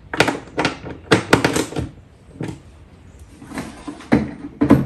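Irregular knocks and clicks of hard plastic and metal mounting hardware being handled while a dinghy-wheel bracket is fitted to a jon boat's transom, several clustered about a second in and again near the end.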